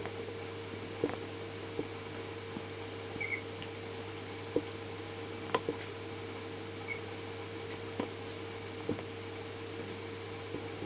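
A puppy moving about: scattered light clicks and taps, and two brief high squeaks, over a steady electrical hum.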